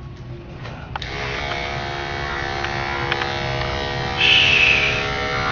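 Electric dog grooming clippers running with a steady buzzing hum that starts about a second in, as the blade trims a matted coat around the dog's muzzle. About four seconds in, a brief louder, higher-pitched burst rises over the hum.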